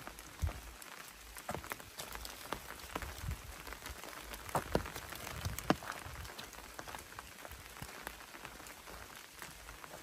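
Rain falling through the forest canopy and onto leaves, a steady patter with many irregular close drop strikes.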